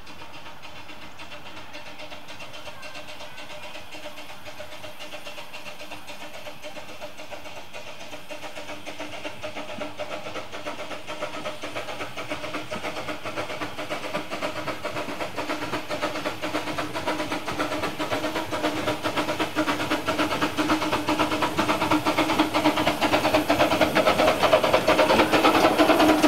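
A 12¼-inch gauge miniature steam locomotive built by Exmoor Steam Railway approaching with its train of passenger carriages, growing steadily louder as it draws near and comes past.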